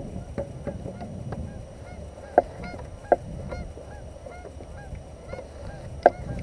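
Geese honking over and over, many short calls overlapping, with a few louder sharp sounds about two and three seconds in and again near the end.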